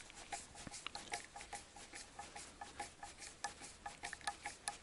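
Hand screwdriver driving a self-tapping screw into the end grain of a log: a faint run of small, sharp clicks, irregular at about four a second.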